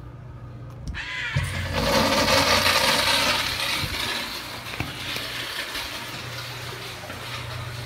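American Standard Washbrook urinal being flushed by its flush valve: a click about a second in, then a rush of water that peaks and eases to a steadier running flow.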